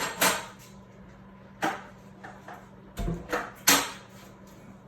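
A few sharp clicks and knocks from small salvaged AC parts being handled, with a faint steady hum underneath.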